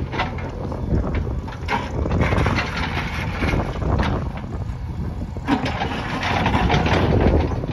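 A JCB backhoe loader's diesel engine running, its loudness swelling somewhat near the end.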